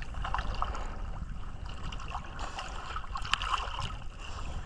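Sea water gurgling and sloshing over a steady low rumble, with scattered small clicks.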